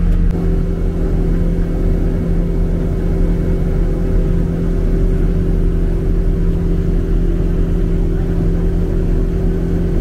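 Car driving at a steady speed: a constant low engine drone with road noise inside the cabin.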